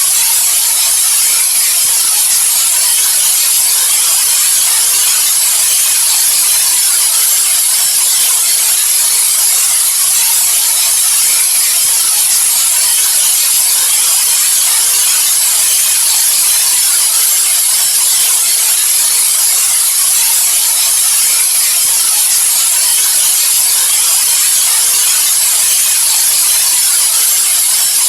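Steady white noise: an even, unchanging hiss, brightest in the high treble, with no breaks.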